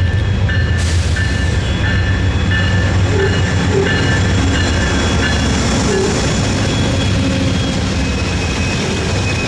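Amtrak GE Genesis diesel locomotives and passenger cars passing close by, with a steady low engine rumble and rail noise. A bell rings about twice a second over it.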